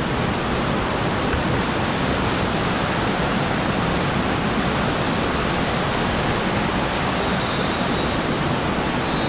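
Rushing water in a cave, a steady, even rush with no breaks.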